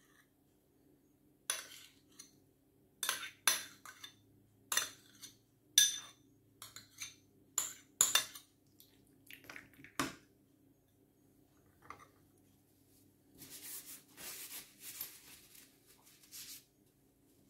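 Metal spoon scooping mayonnaise out of a small ceramic dish, with a string of sharp clinks of spoon on dish. Softer scraping follows for a few seconds near the end.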